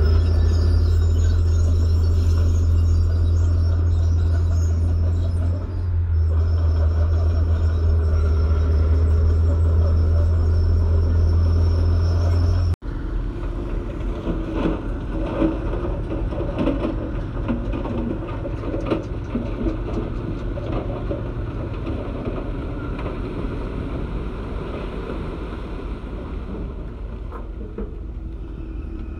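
Komatsu crawler bulldozer's diesel engine running with a steady low drone as it pushes soil. After a sudden cut about 13 s in, heavy diesel engines run more quietly with scattered knocks and rattles as a dump truck backs up and tips its load of soil and rock.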